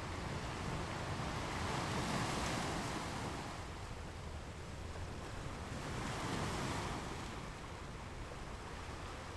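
Ocean surf on a beach: waves breaking and washing in, swelling twice about four seconds apart over a steady low rush.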